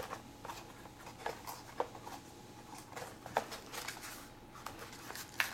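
A small cardboard box and its packaging being opened and handled by hand: scattered rustles and light clicks and taps, with a few sharper ticks.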